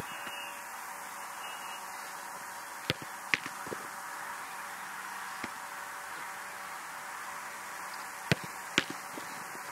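Football being struck during goalkeeper drills: a few sharp ball thuds, two pairs about half a second apart, like a kick followed by the catch, over a steady outdoor hiss.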